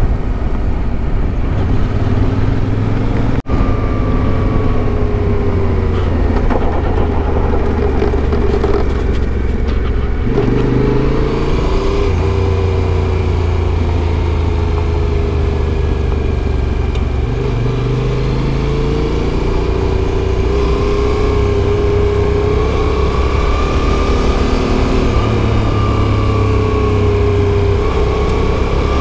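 Adventure motorcycle's engine running under way, its revs rising and falling again and again, over steady noise. The sound cuts out for an instant about three and a half seconds in.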